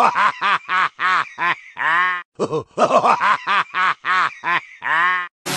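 Laughter sound effect: a quick run of short "ha-ha" laughs ending in one longer laugh, played twice in a row.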